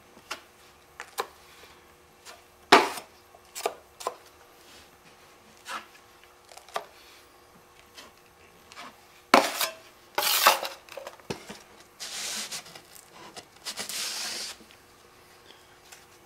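Drywall knife tapping and scraping as quick-setting joint compound is spread around a hole in drywall: scattered sharp taps, the loudest about 3 and 9 seconds in, then a steady scrape for about two seconds near the end.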